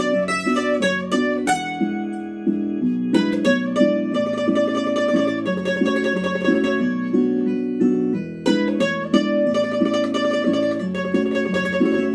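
Bandurria playing a slow bolero melody with a pick, using tremolo on the held notes, over a sustained chord accompaniment.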